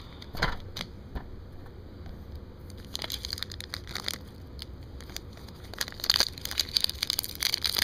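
Wrapper of an Upper Deck hockey card pack being torn open and crinkled by hand. There are a few separate crackles at first, then denser crinkling from about three seconds in, busiest near the end.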